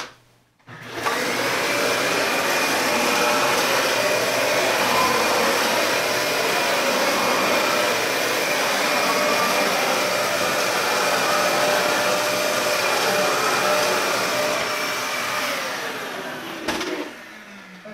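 Dyson DC65 Animal upright vacuum cleaner switched on about a second in and running steadily with a high whine as it is pushed over carpet, then fading away near the end as it is switched off.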